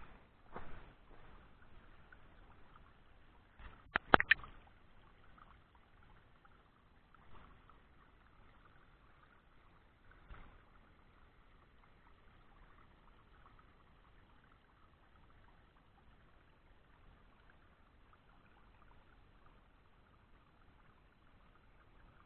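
Small stream trickling over rock slabs, steady and faint. A pair of sharp clicks about four seconds in, and a few soft thumps.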